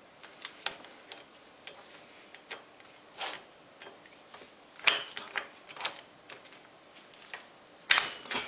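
Irregular metal clicks and taps of a hand tool working the bottom-bracket cup of a Start-Shosse road bike as it is unscrewed, with a few louder clicks about three, five and eight seconds in.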